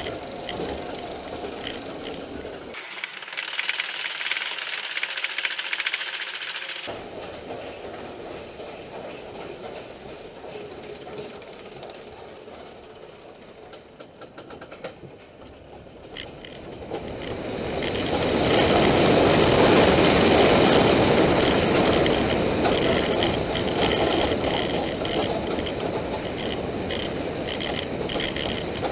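Roller coaster train running on its track: a steady rolling rumble and clatter that turns thin and hissy for a few seconds early on, then swells much louder a little past the middle and stays loud.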